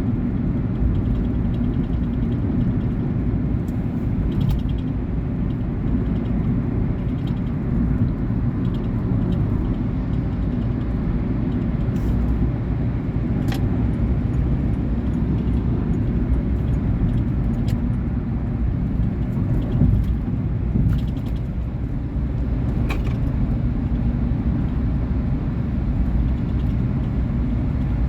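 A 2019 Volkswagen Polo Vivo heard from inside the cabin while driving: steady engine and road rumble. A few short ticks now and then come from a small rattle, which the owner puts down to the passenger seat working loose.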